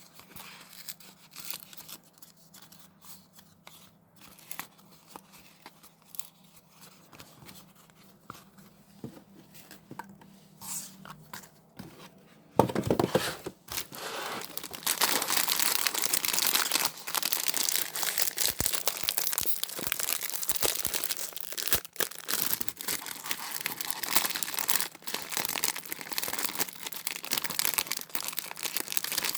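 Plastic snack packaging handled with a few faint rustles, then, about halfway through, torn open and crinkled loudly and continuously.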